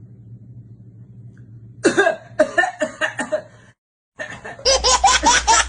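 People laughing hard in rapid pulses, starting about two seconds in. The laughter breaks off for a moment near the middle, then comes back louder.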